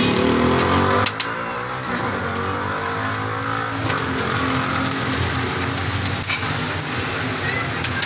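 Street traffic with a motor vehicle's engine running close by, its pitch shifting over the first few seconds, over a steady sizzle from an oiled flat griddle. A few sharp clicks of a metal spatula on the griddle.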